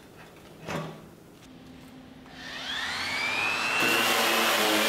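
Handheld electric sander switched on, its motor spinning up with a rising whine and then running steadily at full speed. There is a brief knock about a second before it starts.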